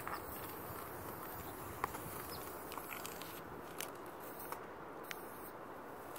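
Steady low background rush with a few scattered sharp clicks and ticks.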